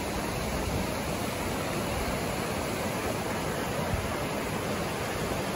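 Small rocky river rushing over stones in shallow rapids: a steady, even rush of water.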